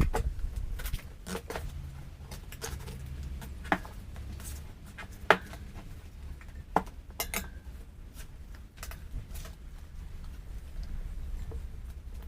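Scattered metallic clicks and taps of hand tools and parts being handled while working on a motorcycle's front wheel, with three sharper knocks in the middle, over a low rumble.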